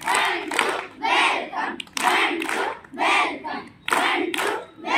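A large group of schoolchildren clapping in unison with a shouted group chant, in regular bursts about twice a second.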